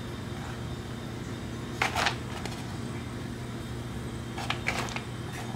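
Red oak acorns clicking and knocking against one another and the metal baking tray as a hand sorts through them: a short cluster of sharp clicks about two seconds in and another near the end. A steady low hum underlies them.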